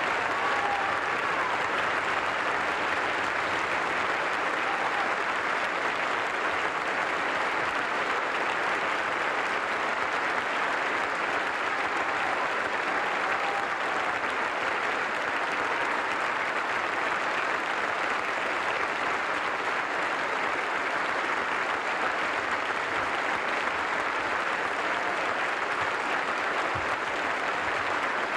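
An audience applauding steadily, a dense clapping with no break.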